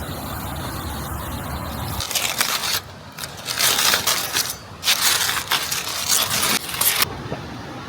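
Irregular bursts of close crunching and crackling over a steady rumbling background, running from about two seconds in until near the end.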